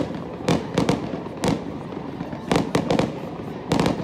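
Aerial fireworks going off: a run of sharp bangs and crackles at uneven intervals, several coming in quick clusters around the middle and near the end.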